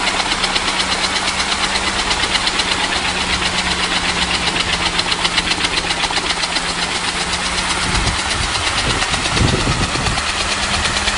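Engine of a homemade scrap-iron helicopter running steadily, with a fast, even chatter and a constant low hum. A low rumble rises briefly about eight seconds in.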